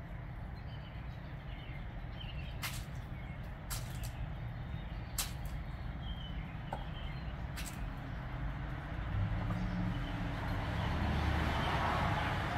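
Low, steady rumble of a nearby motor vehicle, swelling louder in the last few seconds. A few sharp clicks cut through it as a peacock pecks birdseed off the concrete.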